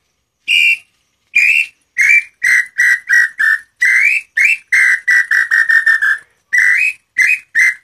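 Hand-turned wooden tinamou call of angico-preto wood, blown in cupped hands to imitate the tataupa tinamou (inhambu-chintã, nambu pé-roxo): a few separate whistled notes, then quick runs of short notes, some gliding up.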